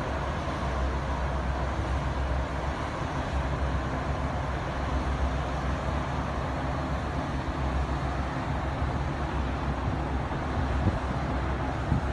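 A steady low engine rumble with a constant hum underneath, running evenly throughout.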